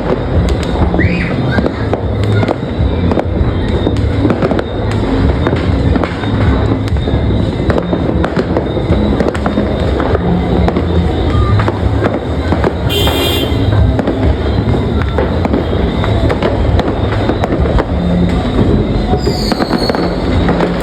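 Dense, continuous barrage of fireworks and firecrackers, many bangs and crackles overlapping with no break, and a brief whistle about two-thirds of the way through.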